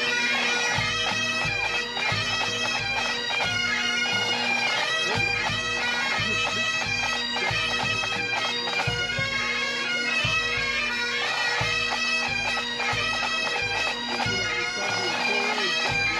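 Pipe band playing: bagpipes with steady drones under the chanter melody, over a regular drum beat.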